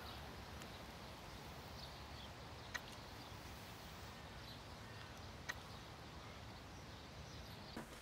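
Faint outdoor ambience: a low steady rumble with a few distant bird chirps, and two short clicks, one about three seconds in and one about five and a half seconds in.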